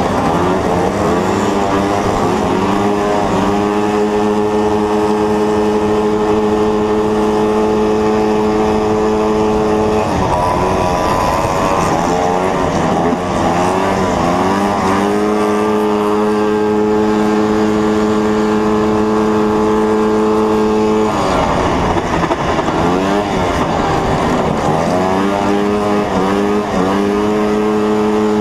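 1974 Yamaha snowmobile's two-stroke engine at race pace, heard from on board. It holds a steady high pitch at full throttle on the straights, and dips and climbs again as the throttle is eased and reopened through the corners, about 10 s and 21 s in.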